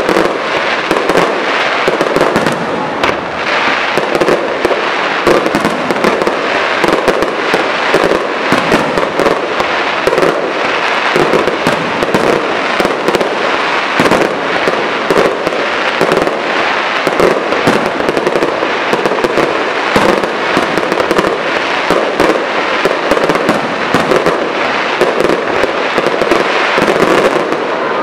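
Aerial fireworks display: a dense, unbroken run of pops and bangs from shells and crackling stars bursting overhead, loud throughout.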